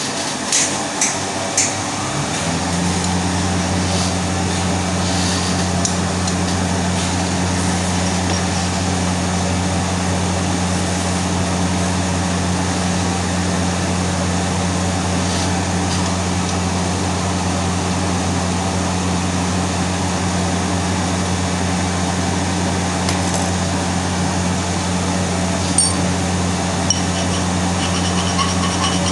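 Arc welding at about 135 amps: a continuous hiss from the arc, with a few clicks at the start and a steady low hum that sets in about two seconds in and holds.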